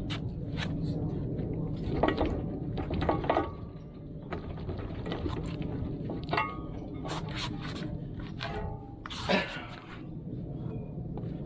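Irregular metal knocks and clanks, some with a brief ring, as a steel bucket pin is worked out of a mini excavator's bucket linkage; the loudest come about two, three and nine seconds in, over a steady low rumble.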